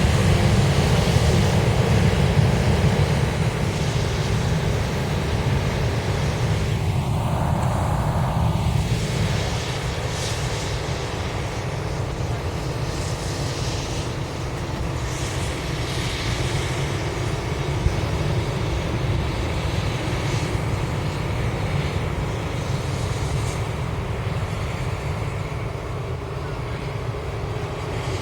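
Steady low mechanical rumble of a running motor, with a lighter hiss above it and no distinct events.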